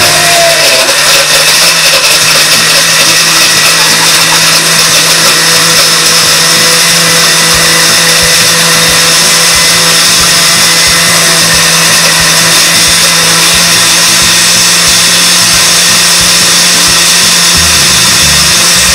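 Countertop blender running steadily at one speed, blending a protein shake with ice, banana and milk. It is loud and unchanging throughout.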